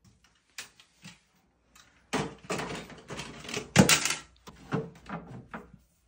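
Plastic toy cars clattering and knocking against a shelf as they are handled: scattered clicks at first, then a dense run of knocks in the middle, the loudest a little before four seconds.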